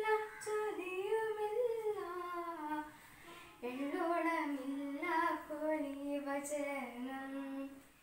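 A single female voice singing unaccompanied, in two sung phrases with a short pause for breath about three seconds in.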